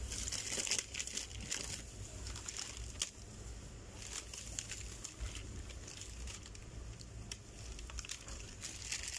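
Plastic crinkling and rustling in short, irregular bursts, over a low steady hum.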